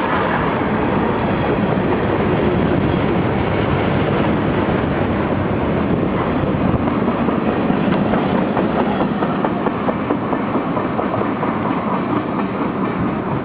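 Freight cars of a long mixed freight train rolling past, steel wheels clattering and rumbling on the rails, easing off slightly toward the end.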